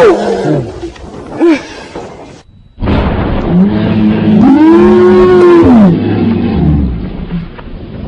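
Loud roar-like cries of fright: one dies away at the start, a short yelp comes about a second and a half in, and a long cry from about three and a half to six seconds in rises and then falls in pitch.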